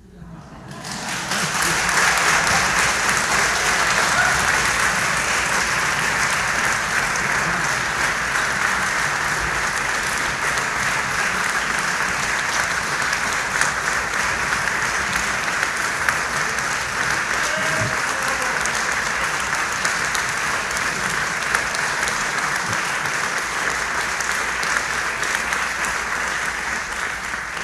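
Crowd applauding steadily, building up over the first two seconds and easing a little near the end.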